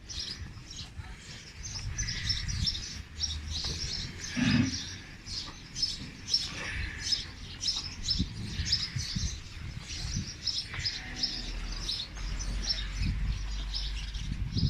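A flock of small birds chirping continually, many short high chirps overlapping one another, over a low rumble, with one dull thump about four and a half seconds in.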